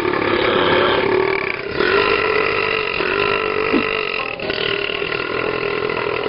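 Long, drawn-out belches at a steady pitch, one running into the next with short breaks about 1.7 and 4.4 seconds in.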